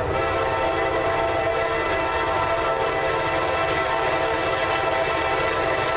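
Nathan K5LA five-chime air horn on a Norfolk Southern diesel freight locomotive, held in one long, steady chord over the low rumble of the approaching train.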